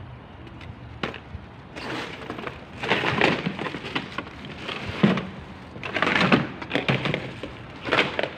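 Rubbish being rummaged through: plastic bags and wrappers rustling and crinkling in several irregular bursts, with a sharp knock about five seconds in.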